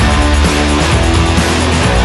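Loud hard-rock music with electric guitar.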